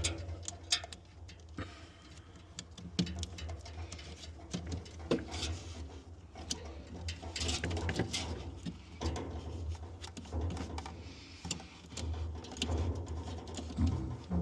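Scattered clicks, taps and knocks of hands and tools working on refrigerator parts, over a steady low hum.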